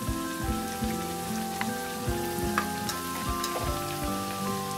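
Vegetable somas deep-frying in hot oil, a steady crackling sizzle, with instrumental background music playing over it.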